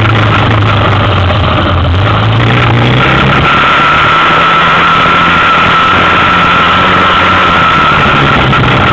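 2003 Yamaha Big Bear 400 4x4 ATV's single-cylinder engine running steadily while the quad wades through a creek, with water noise around it. The revs rise about three and a half seconds in, and a steady high whine runs above the engine note.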